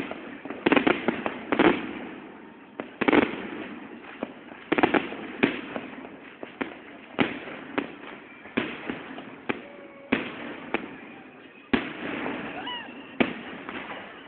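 New Year's fireworks going off: a string of sharp bangs from aerial shells bursting, at irregular spacing of roughly one every half second to a second, each fading out in a short echo.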